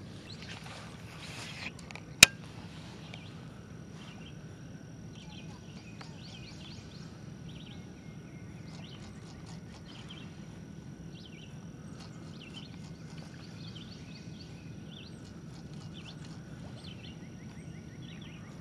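A cast with a rod and reel: a short whoosh of the cast, then one sharp click about two seconds in. After it, birds chirp on and off against a steady outdoor background.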